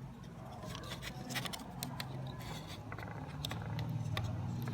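Small hard plastic parts being handled and worked: a scatter of light clicks and scraping, over a faint low hum.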